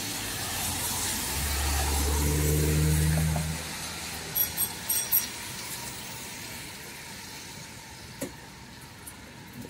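A motor vehicle passing close by: a low engine hum that swells to its loudest about three seconds in and fades away, over a steady hiss. A few short, high-pitched electronic beeps sound shortly after it.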